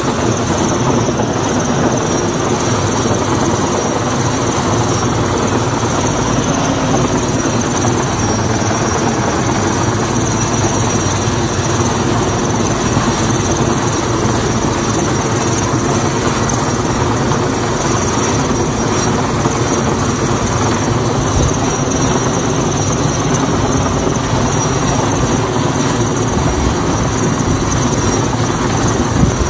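Heavy-lift helicopter hovering close overhead with a suspended load, its rotor and engine noise loud and steady.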